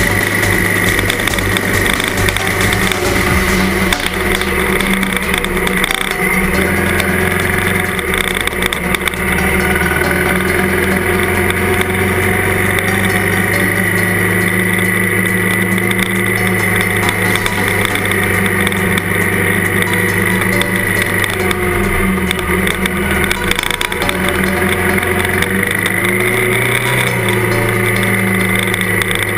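Trail motorcycle engine running steadily at cruising speed on a dirt track, picked up by a camera mounted on the bike, its note changing a little about a quarter of the way in and again near the end.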